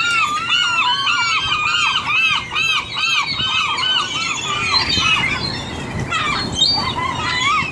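A flock of feeding gulls calling, many short arched cries overlapping in quick succession, thinning out after about four seconds, over a low background rumble.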